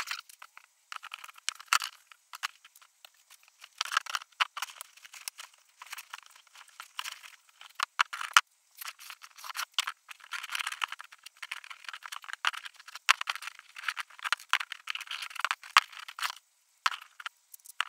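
Thin strip of sheet steel handled and bent into a ring around a paint tin: irregular metallic rattling and scraping against the tin and cardboard, with many sharp clicks.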